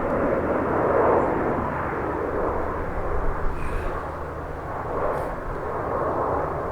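Panavia Tornado GR4 jet flying over, its two RB199 turbofans giving a steady rushing jet noise with a low rumble underneath, swelling slightly about a second in and again about five seconds in.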